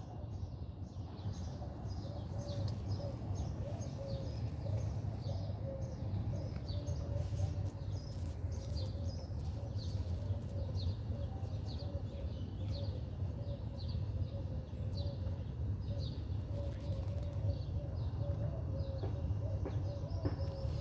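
Small birds chirping, short high chirps repeating several times a second, over a wavering mid-pitched tone and a steady low rumble.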